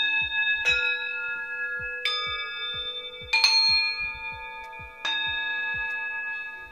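Tibetan singing bowls resting on a person's body, struck with a wooden mallet five times about a second or so apart. Each strike rings on in several steady overlapping tones that slowly fade near the end.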